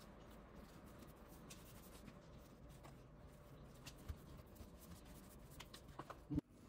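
Near silence, with faint scraping and a few soft taps from a flat dough scraper cutting dough on a countertop and pieces of dough being set down.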